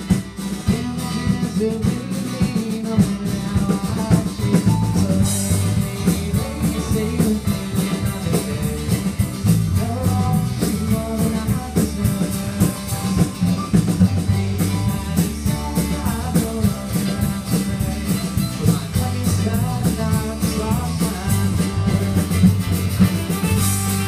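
Live rock band playing an instrumental passage: drum kit and guitars with a steady beat.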